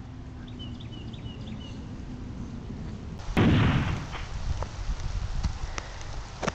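A single loud gunshot about three seconds in, with a short rumbling tail. Before it a bird chirps faintly four times, and after it come scattered crackles of footsteps in dry leaves and brush.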